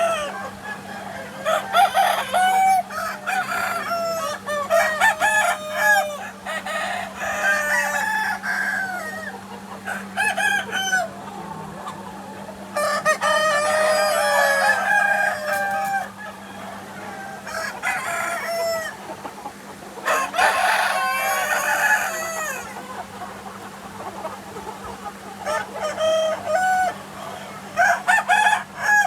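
A flock of free-range chickens clucking almost without pause, with roosters crowing several times over the clucking.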